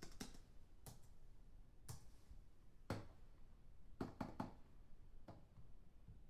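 Near silence with faint, irregular clicks and knocks, about one a second, including a quick run of three a little past the middle.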